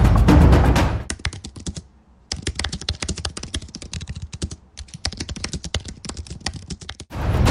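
Rapid typing on a computer keyboard, fast clicks with two short pauses. Drum-heavy intro music cuts off about a second in and comes back shortly before the end.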